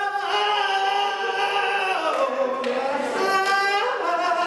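Young man singing into a stage microphone, holding one long note for about two seconds, then singing a second sustained phrase.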